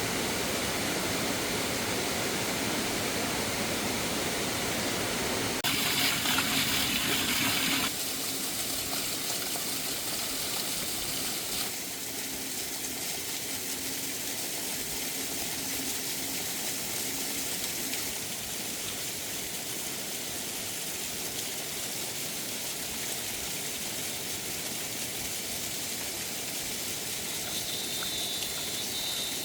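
Water rushing steadily, as of a stream in flood, with the level shifting abruptly a few times.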